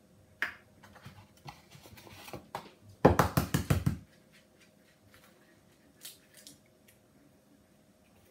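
Eggs being cracked into a glass measuring jug: light taps and clicks of eggshell. About three seconds in there is a loud, quick run of knocks lasting about a second.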